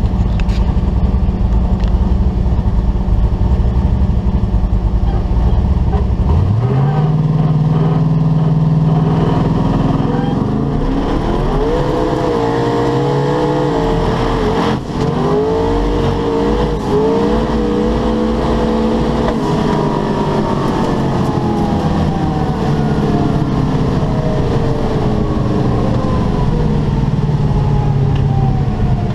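Twin-turbo big-block Chevrolet V8 heard from inside the drag car's cabin. A steady low drone runs for about six seconds, then the engine note climbs sharply and rises in steps through the gears, with a brief dip at a gear change near the middle. From about two-thirds of the way through the pitch falls slowly as the car comes off the power and slows.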